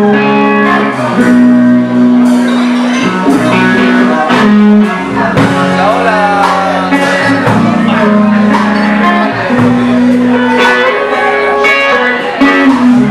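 A blues-rock band playing live: electric guitar leading with bent notes over electric bass and a drum kit.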